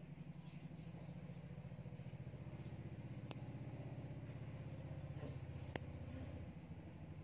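Two sharp clicks of a steel nail clipper snipping through fingernail, about two and a half seconds apart, over a steady low hum.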